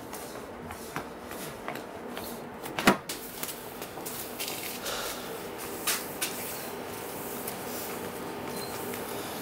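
Footsteps coming down concrete stairs, with a sharp knock about three seconds in and a few lighter knocks later, over a steady background hum.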